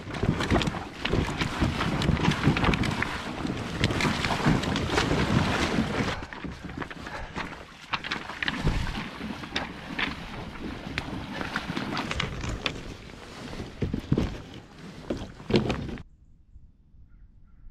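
Kayak hulls dragged over a pebble beach and pushed into the shallows: scraping and grinding on stones, feet crunching on pebbles and water splashing, with many small knocks throughout. The sound cuts off suddenly near the end.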